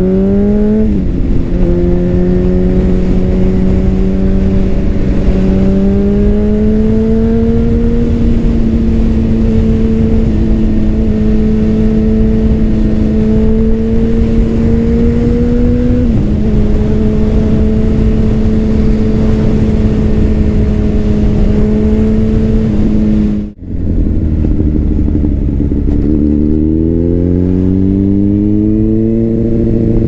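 Honda CBR600RR's inline-four engine with a Leo Vince exhaust, heard onboard while riding. It climbs in revs and shifts up about a second in, then runs steadily at cruising speed with small rises in pitch. After a brief break in the sound about two-thirds of the way in, the revs fall and then climb again as it accelerates.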